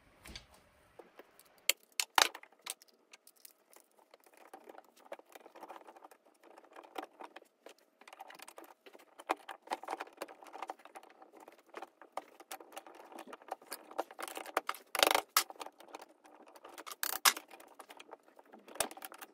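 Metal parts clinking, knocking and scraping as a combat robot's drum weapon, with its bearings and spacers, is worked by hand into the chassis. There are louder knocks about two seconds in and again near fifteen and seventeen seconds.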